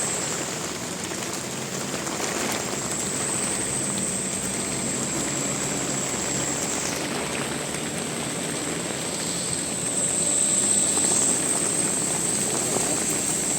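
Steady vehicle engine and road noise with no horn call, under a thin, steady high whine.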